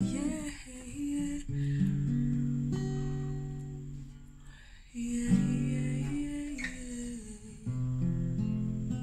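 Steel-string acoustic guitar strummed slowly and softly: four chords, each left to ring and fade before the next is struck.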